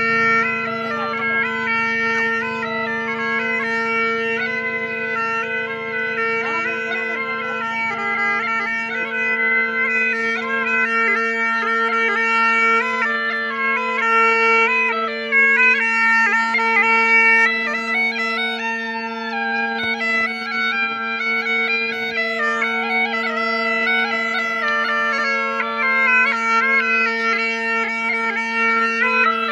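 Music on a wind instrument: a steady held drone under a quick, ornamented melody that steps up and down.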